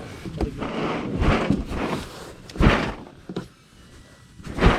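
Knocks and thunks of gear being handled in a boat while a livewell is being filled: a rushing noise through the first two seconds or so, with three sharp knocks, the last and loudest near the end.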